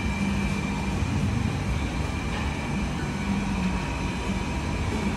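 Steady background hum of a restaurant dining room: a continuous low rumble with a faint steady high whine, like air conditioning or ventilation running.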